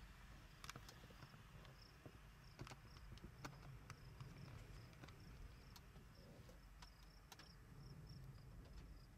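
Near silence of open grassland: a faint low wind rumble with faint, high insect chirps repeating a few times a second and a few scattered light ticks.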